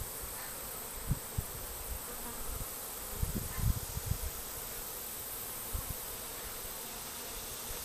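A swarm of honey bees buzzing around the hive box, a steady drone close to the microphone. A few short low thumps come through about a second in, between three and four seconds, and near six seconds.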